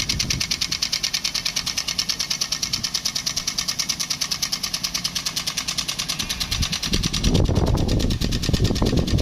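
Small engine running steadily with a fast, even clatter of about eight beats a second; from about seven seconds in a louder low rushing noise joins it.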